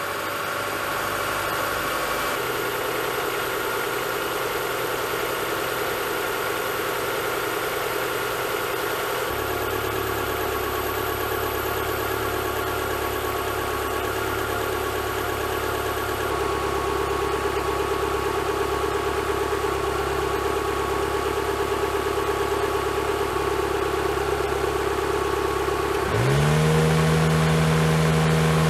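Ford car engine idling steadily as it warms from a cold start to full operating temperature on fresh 15W-40 oil after an engine flush, running quietly. The hum shifts abruptly a few times, and near the end a louder steady hum spins up and holds.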